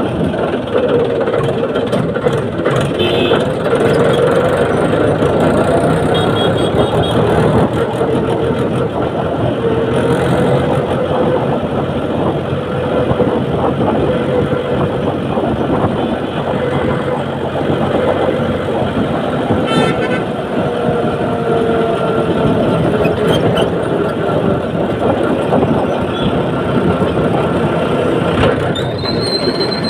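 Mahindra tractor's diesel engine running steadily under way, heard from the driver's seat. A few brief vehicle horn toots sound over it.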